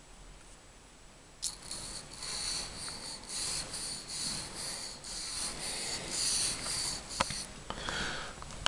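Paintbrush bristles rubbed back and forth in quick dry strokes, about two a second, starting suddenly about a second and a half in.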